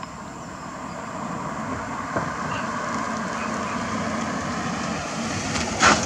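A Ford police sedan approaching at low speed and pulling alongside, its engine and tyre noise growing steadily louder. A short sharp noise comes just before the end.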